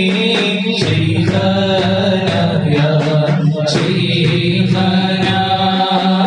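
A man singing a devotional song in a drawn-out chanting style, holding and bending long notes over a steady low drone with light accompaniment.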